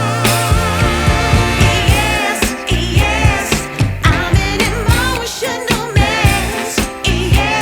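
Music with a sung melody over a steady beat.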